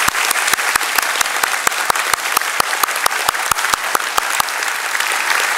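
Audience applauding, with one nearby pair of hands clapping steadily about five times a second above the crowd's applause until near the end.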